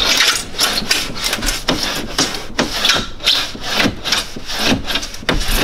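Toyota Hilux door glass scraping and grinding in the door's rubber window seal as it is pushed and worked by hand, in repeated strokes about three a second. Leftover shards of the old broken glass still lodged in the seal are being crunched and forced out.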